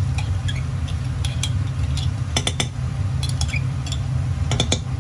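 Metal spoon clinking and scraping against a glass jar while chili garlic sauce is scooped out, in several short clusters of sharp clicks over a steady low rumble.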